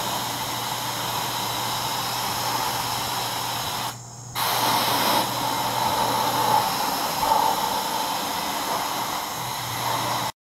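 Gravity-feed air spray gun hissing steadily as it sprays zinc chromate primer onto a sheet-metal panel, stopping briefly about four seconds in before spraying again.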